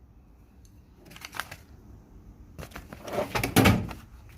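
Handling sounds: a few short clicks and rustles about a second in, then a louder run of clicks and rustles about three seconds in, as objects are picked up and moved.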